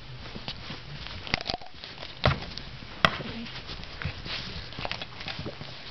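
A dog mouthing and pawing at a plush toy: scattered soft knocks, rustles and taps, with a heavier thump about two seconds in and a sharp click about three seconds in.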